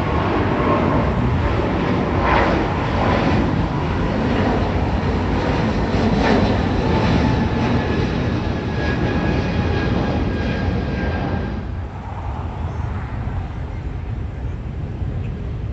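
Jet engines of a Boeing 777 climbing out at takeoff power: a loud, steady rush of jet noise with faint whining tones. About twelve seconds in it cuts off suddenly to a quieter, steady airport rumble.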